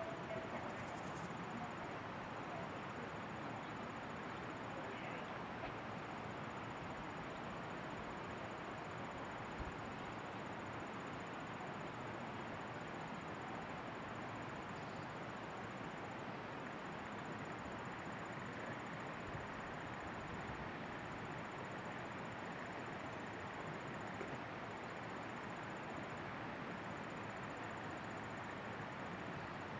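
Steady outdoor background noise, an even hiss, with a faint high-pitched insect trill that stops and starts again every few seconds.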